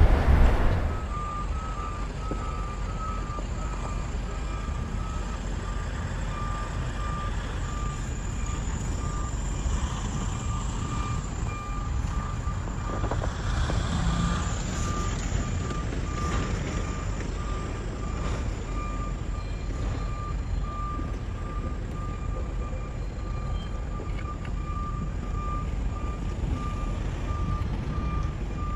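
Electronic warning alarm beeping in an even, rapid repeat, over the steady low rumble of a running engine, as a mobile crane hoists a locomotive.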